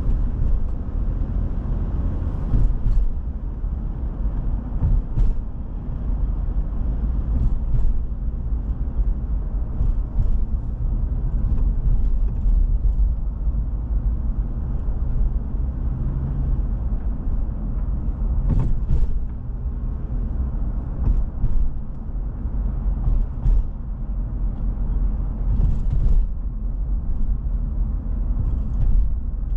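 Steady low rumble of a car on the move, with scattered light clicks and knocks.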